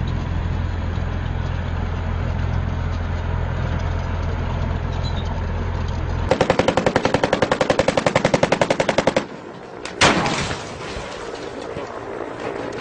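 Armoured vehicle's diesel engine running with a steady low rumble, then a burst of rapid, evenly spaced automatic gunfire lasting about three seconds, then a single loud blast about ten seconds in with a lingering noisy tail.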